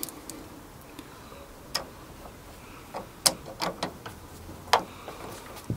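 Hand screwdriver driving a fixing screw, with irregular sharp clicks and taps of the tool against the plastic and metal fittings, about eight in all.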